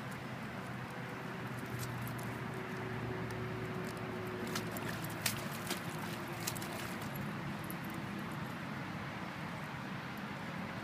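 Ibizan hound digging in wet soil with its front paws, scraping at the mud, with a few sharp clicks near the middle, over a steady background noise.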